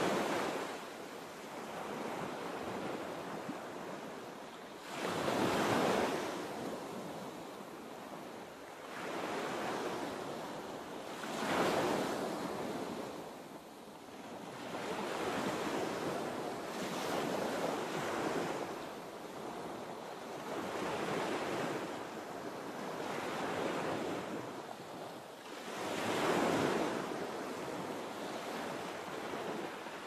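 Sea waves washing in: surges of surf that swell and fall away about every five to six seconds, with a steady hiss of water between them.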